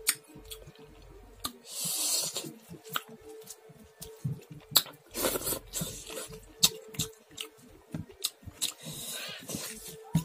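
Fingers mixing cooked rice and dal on a steel plate: wet squishing with many small sharp clicks and smacks, and a few longer soft squelchy rushes.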